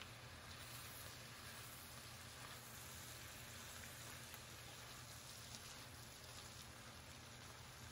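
Faint, steady sizzle of vegetables frying in a pan while they are stirred with a spatula.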